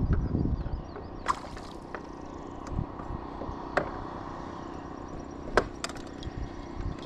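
Handling noise from a crappie held over a kayak: a handful of sharp clicks and knocks, the loudest about five and a half seconds in, with a brief low rumble at the start.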